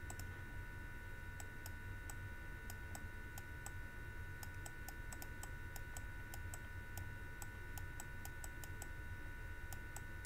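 Faint, irregular clicking, a few clicks a second, from a digital pen writing on screen, over a steady electrical hum.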